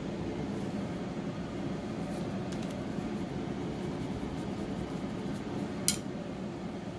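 Steady low background hum, with a few faint ticks from a small sculpting tool working clay and one sharp click about six seconds in.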